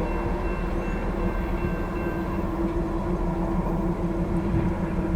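Loaded grain freight train rolling past: steady rumble of the cars on the rails under a continuous low drone, with higher steady tones dying away about halfway through.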